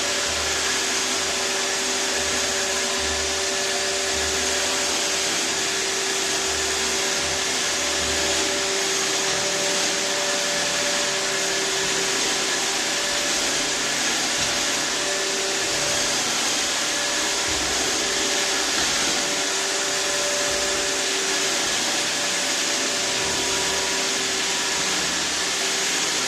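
iRobot Roomba 612 robot vacuum running steadily, a continuous suction hiss with a faint whine over it.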